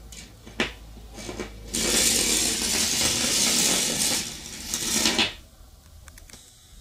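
Battery-and-neodymium-magnet 'train' running through a bare copper wire coil: a sharp click as it goes into the coil, then a loud metallic rattling and scraping for about three and a half seconds as the magnets run along the coil turns, fading out near the end.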